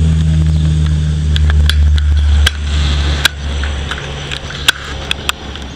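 Bombardier Dash 8 Q300's twin Pratt & Whitney PW123 turboprops at takeoff power: a low, steady propeller drone that drops suddenly about two and a half seconds in and fades as the aircraft lifts off and climbs away. Sharp clicks crackle over it throughout.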